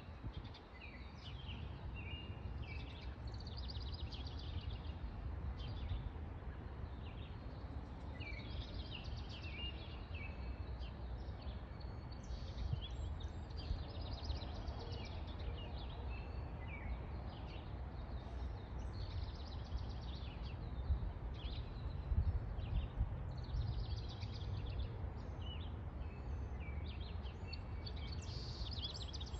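Songbirds chirping and singing over and over, short high phrases overlapping, over a low steady rumble.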